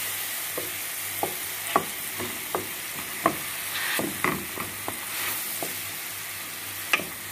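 Banana slices sizzling in hot butter in a metal kadai, with a wooden spatula knocking and scraping against the pan at irregular moments as they are stirred and mashed.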